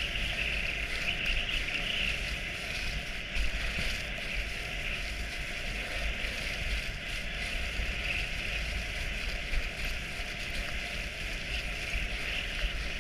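Dog sled gliding over a packed snow trail behind a running team: a steady hiss of the runners on snow, with a constant low rumble of wind on the microphone.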